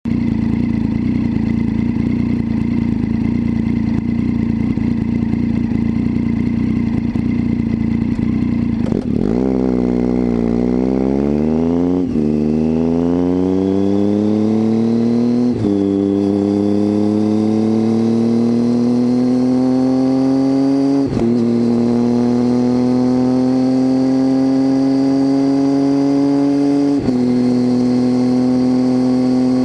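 Triumph Tiger 800's inline three-cylinder engine through an unbaffled titanium Leo Vince exhaust, heard from under the seat. It runs steadily for about nine seconds, then pulls away and accelerates up through the gears. The engine note climbs in pitch, and four upshifts come at roughly 12, 15, 21 and 27 seconds in.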